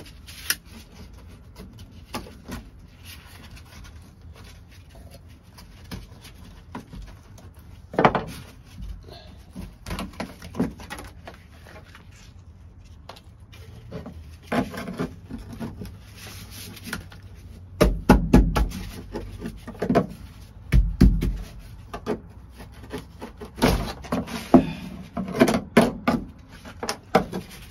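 Screwdriver scraping and chipping old tar-like coating and surface rust off the bare steel floor pan of a 1972 Toyota Celica. It comes as irregular scrapes and sharp knocks, busier and louder in the second half.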